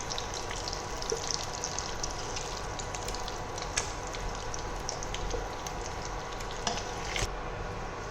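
Hot oil sizzling steadily in a pot with frequent small crackling pops, as masala-coated boiled eggs fry in it.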